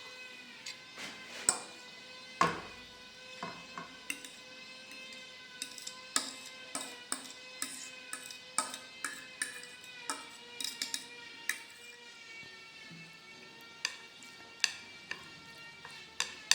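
Background music holding one droning tone, over irregular sharp clinks of a utensil against a bowl while noodles are eaten.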